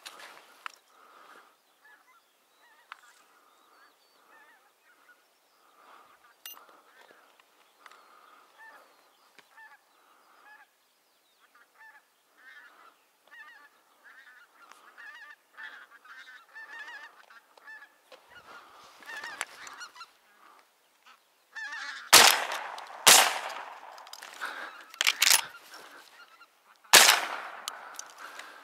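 A flock of white-fronted geese calling, with repeated short honks that grow denser and louder as the birds come in close. Near the end several much louder, sharp sounds stand out over the calls.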